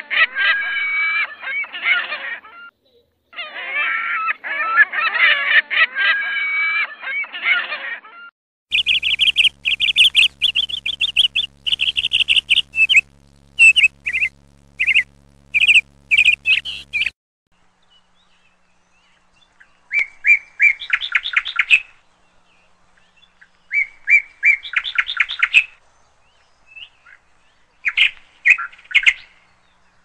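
Birds calling: a dense, busy chatter of a flock for about the first eight seconds, then repeated high chirps, then short bursts of twittering separated by quiet gaps. The stretches change abruptly, as if separate recordings were cut together.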